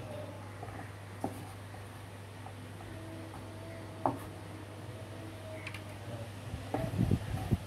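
A small kitchen knife slicing a carrot on a wooden cutting board, with a couple of sharp taps of the blade on the board, the louder one about four seconds in, over a steady low hum. Near the end, low rumbling buffeting on the microphone.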